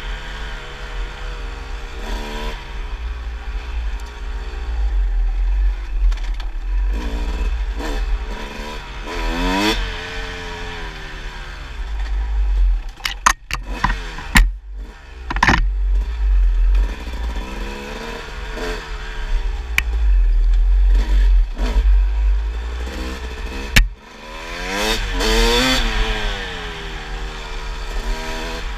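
Kawasaki dirt bike engine being ridden on a trail, revving up and falling back again and again as the throttle is worked, under a heavy low rumble. A burst of sharp clattering knocks comes about halfway through, and the engine briefly drops away just before the last rev-up.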